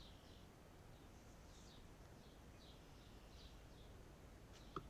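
Faint bird chirps: short high notes, about two a second, over a quiet background hiss, with a single small click near the end.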